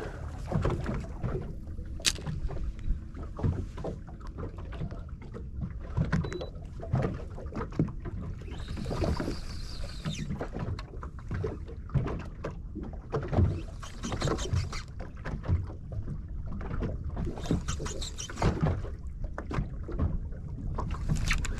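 Water lapping against the hull of a small boat, with scattered small knocks and clicks throughout and a brief hiss about nine seconds in.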